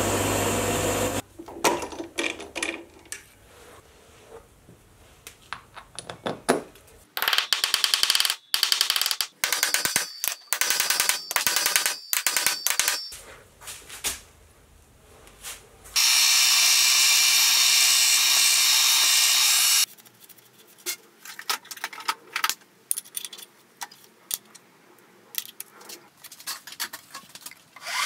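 A lathe drilling aluminium runs and stops about a second in. After that come scattered clicks, taps and clinks of small metal parts being handled, with a steady hiss lasting about four seconds in the middle.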